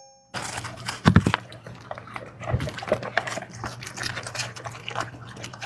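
A dog eating: a dense, irregular run of chewing and smacking clicks, with a few louder strikes about a second in and again near the middle.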